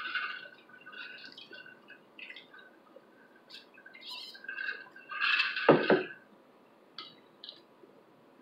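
Drink sipped through a plastic straw: a string of short, squeaky sucking slurps, with a louder slurp and two low knocks about five and a half seconds in. A few faint clicks follow near the end.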